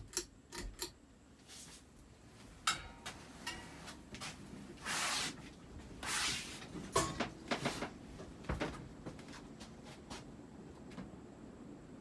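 Emerson Premium ceiling fan running on high with its badly bent flywheel, giving irregular light clicks and knocks and two short whooshes about five and six seconds in.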